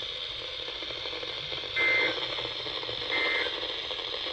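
EAS end-of-message data bursts on a NOAA Weather Radio broadcast: two short, buzzy digital tone bursts a little over a second apart over steady radio hiss, signalling the end of the severe thunderstorm warning.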